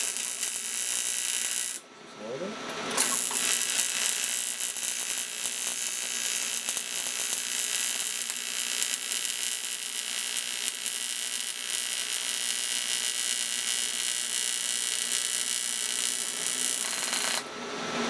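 AC TIG welding arc from an AHP AlphaTIG 200X on 1/8-inch aluminium, a steady buzz with crackle. The arc stops about two seconds in, strikes again a second later and runs on until shortly before the end.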